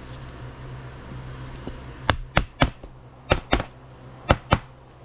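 A rigid plastic card holder knocked against a wooden desk: about seven sharp taps starting about two seconds in, mostly in quick pairs, over a low steady hum.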